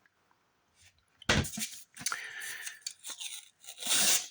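Book's back cover being pulled off its spine, the glued binding tearing in several ripping pulls that start about a second in, the loudest near the end.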